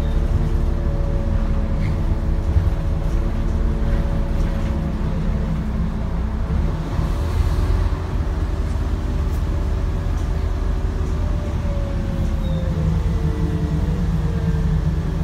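Scania N230UD double-decker bus, its five-cylinder diesel engine and drivetrain running as the bus drives. A steady low rumble, with engine notes that drift slowly down in pitch in the second half.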